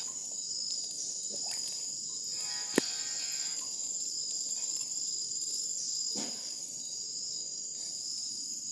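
Night insects shrilling steadily in two continuous high tones, with one sharp pop about three seconds in.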